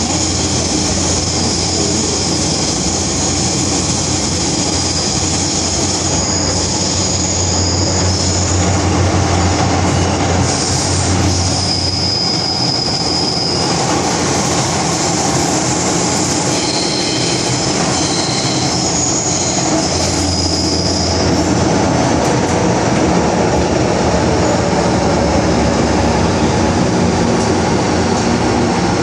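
MTR M-Train electric metro car heard from inside while running through a tunnel: a steady rumble of wheels on rail and a low hum. Several high-pitched wheel squeals come and go through the middle part.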